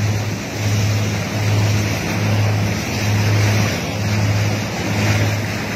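Motorboat under way: a low engine hum that pulses a little more than once a second, over a steady rush of water and wind.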